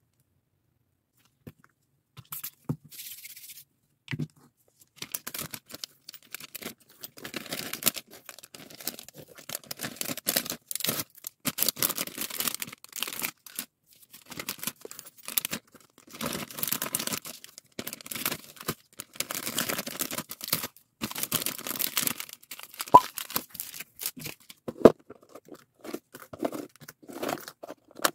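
Clear plastic bags crinkling and rustling in irregular handling noises as fuse-bead keychains are picked up and set down, starting after a second or two. There are a couple of sharp plastic clicks near the end.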